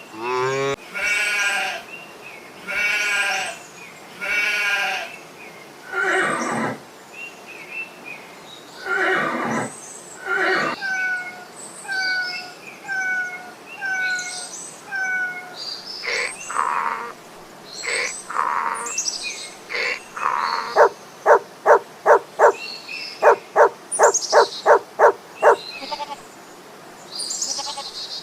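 Goats bleating in a series of separate calls, with a fast run of about a dozen short, loud pulses near the end.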